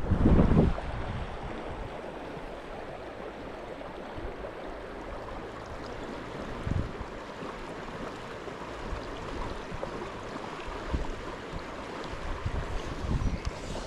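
River water running steadily, with gusts of wind buffeting the microphone, the strongest in the first second and shorter ones later on.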